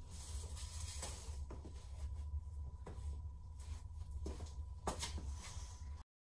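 Golf balls rolling under a 750 lb Browning gun safe as it is pushed across concrete: a steady low rumble with scattered sharp clicks as the balls knock on the floor and against each other. The sound cuts off suddenly near the end.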